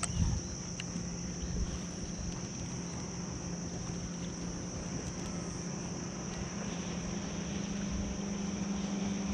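A steady low motor hum that grows louder near the end, under a constant high-pitched drone, with a couple of light knocks about a second in.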